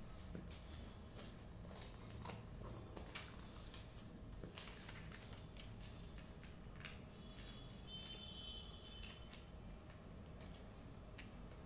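Quiet handling of a paper sheet: light rustles and scattered soft clicks, with a brief faint high tone about eight seconds in.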